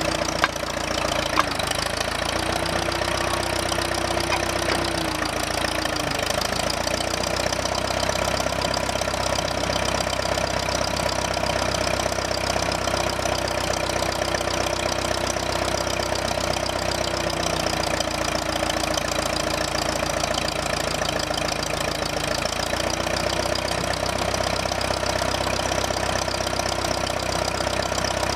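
The engine of a 1960 Case 440L backhoe running steadily. A higher tone above it rises and falls in pitch every so often, and there are a couple of sharp clicks near the start.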